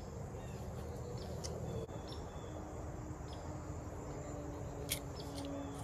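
Faint open-air ambience: a steady low rumble with a faint hum and scattered short, high chirps, and one sharp click about five seconds in.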